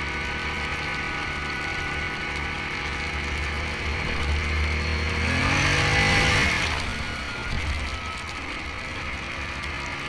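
Yamaha Grizzly 700 ATV's single-cylinder engine running steadily under way. About six seconds in, a loud rush of water spray as the quad ploughs through a large puddle.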